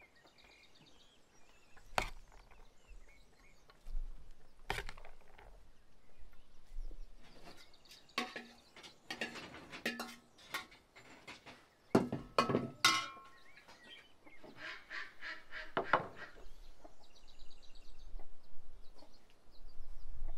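Scattered clicks, knocks and scrapes of a metal spoon against a white enamel bowl while bulgur is spooned out of it, with faint bird chirps behind.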